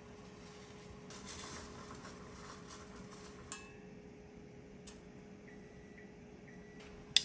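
A few separate light clicks and clinks of kitchenware being handled, the last one near the end the loudest, over a steady low hum and a soft hiss about a second in.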